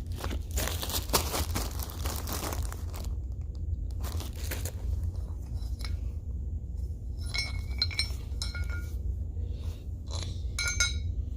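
Small metal truck parts, hood pivot bushings and washers, being handled: rustling and clicks, then several short ringing clinks in the second half, over a steady low hum.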